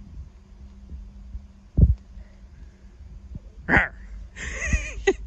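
Low rumble on the microphone with a few dull thumps, the loudest about two seconds in. Near the end a child's short, high-pitched vocal sound.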